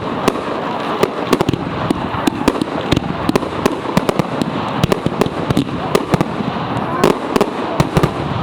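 Fireworks display: a rapid, dense run of sharp bangs, several a second, over continuous crackling.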